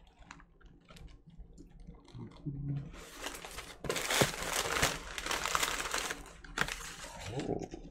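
White tissue packing paper crinkling and rustling as hands dig through it in a cardboard shipping box. It is light at first and turns into dense, louder crinkling from about two seconds in, easing off near the end.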